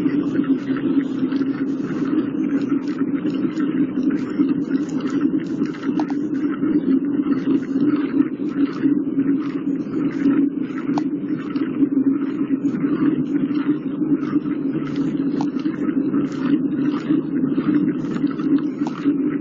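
Steady rumble of wind and tyre noise on the microphone of a camera riding along on a bicycle over asphalt, with frequent small irregular clicks and rattles.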